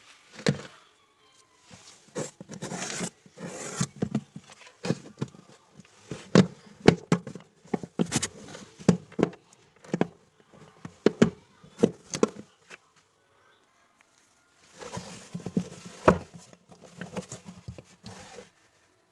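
Hand work on spin-dryer parts: a run of sharp, irregular knocks and taps mixed with scraping. After a pause of a couple of seconds comes more scraping and rustling, with one strong knock.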